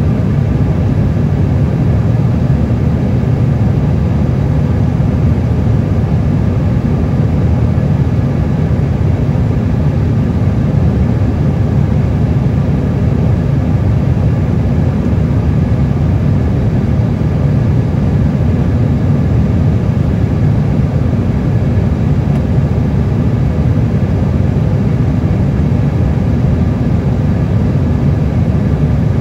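Steady engine and airflow noise inside an airliner cabin in flight: an even, low-pitched roar with faint steady whining tones above it.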